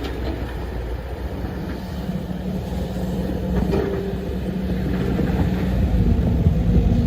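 Diesel engine of heavy earthmoving machinery running steadily with a low hum, growing somewhat louder toward the end.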